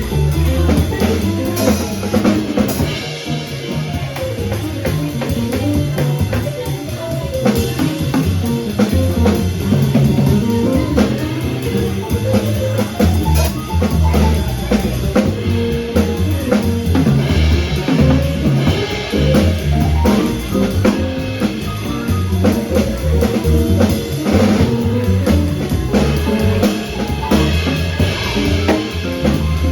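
Live jazz quartet playing, with the drum kit most prominent: cymbal and snare strokes over a moving bass line, with piano and saxophone in the band.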